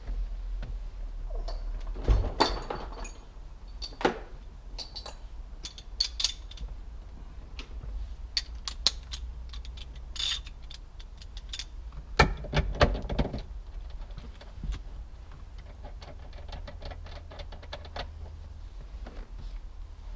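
A ratchet wrench clicking and metal tools clinking while a steering wheel is fitted onto the steering column, with scattered knocks. The clatter comes in two busier spells, about two seconds in and again around twelve seconds in.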